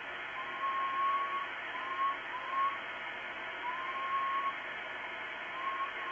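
A person whistling into a transceiver microphone in about five short whistles near one pitch, some rising slightly, over the steady hiss of the Icom IC-9700's receiver. It is a test whistle, sent up to a linear satellite to hear one's own signal come back on the downlink.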